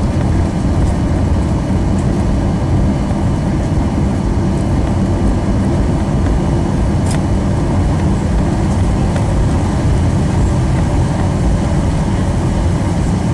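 Cabin noise inside a Southwest Airlines Boeing 737 taxiing: a steady low rumble of the jet engines and the wheels rolling on the taxiway, with one faint tick about halfway through.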